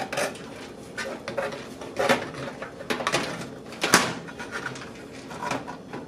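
Scattered clicks, taps and knocks of computer hardware handled inside a steel Thermaltake Versa H15 PC case as a motherboard is tried for fit. The loudest knock comes about four seconds in.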